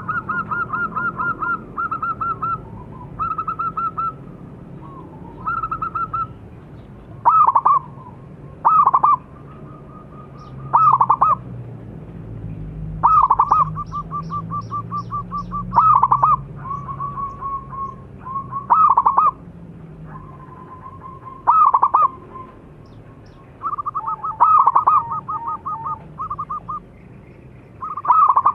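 Zebra dove (perkutut) cooing: runs of rapid rolling trilled coo notes, broken about every two to three seconds by a louder accented note.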